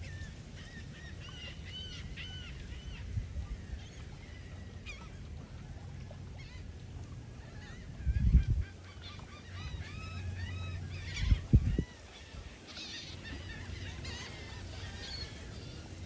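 A flock of seagulls calling, with many short arched cries overlapping without letup over a steady low rumble. Twice, about eight and eleven seconds in, a brief louder low rumble rises over the calls.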